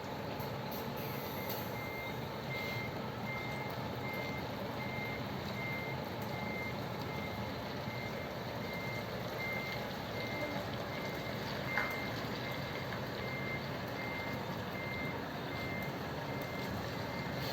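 A tour bus's reversing alarm, a single high beep repeating about every half second, starting about a second and a half in, over the bus's diesel engine running. There is one short sharp click about two-thirds of the way through.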